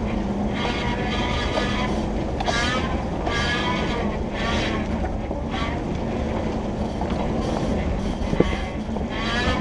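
Jeep Wrangler TJ crawling slowly over a rocky trail, its engine running low and steady. A string of short high-pitched squeals rises and falls every second or so, and there is one sharp knock about eight seconds in.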